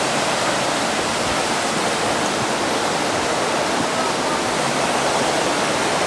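Steady rushing of a small waterfall on a mountain stream, water pouring over rock ledges into a pool.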